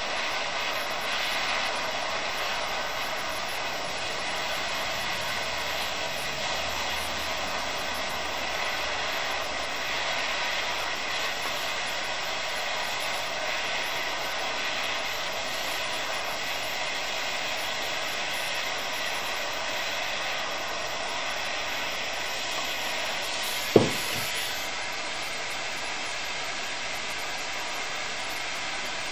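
Handheld gas torch burning steadily with a broad hiss, heating a small steel chisel blade held in grips. About 24 seconds in, a sharp clink and a brief sizzle as the hot steel is plunged into transmission fluid to quench it.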